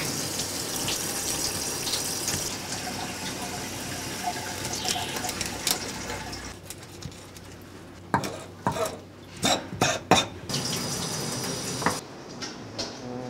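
Water spraying steadily from a rinse nozzle onto fish on a plastic cutting board, stopping after about six seconds. Later comes a quick run of sharp knocks and scrapes as a kitchen knife cuts through a fish against the board.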